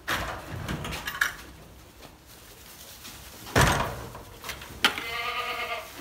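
Boer goat bleating near the end, one call of about a second, over handling noises: rustling at the start and a loud thump about three and a half seconds in.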